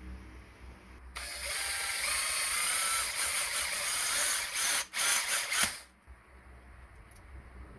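Cordless drill running, driving a screw into the leaf-spring mount on a model truck's front axle. It starts about a second in, runs steadily, breaks off briefly near five seconds, then gives a couple of short bursts and stops.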